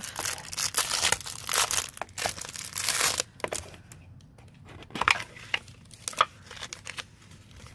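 Clear plastic wrap crinkling and tearing as it is peeled off a small cardboard jewelry gift box. After about three seconds it gives way to a few light clicks and rustles as the lid comes off and the bagged necklace is handled.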